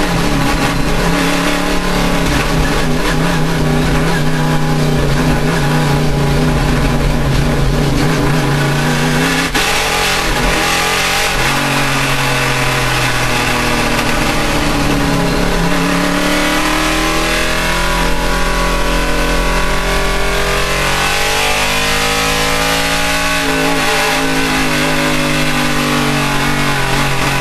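Race car engine at high revs under a loud rush of noise. The pitch holds steady at first, dips sharply about a third of the way through, then repeatedly rises and falls as the engine revs up and down.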